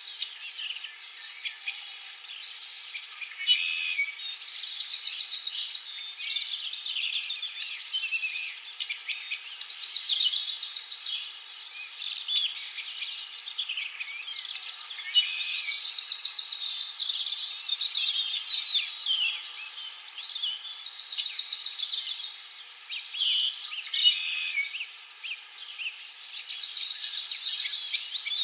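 Several songbirds chirping and singing together in a spring dawn-chorus style. A quick, rapid trill comes back every few seconds among the chirps, over a steady faint hiss.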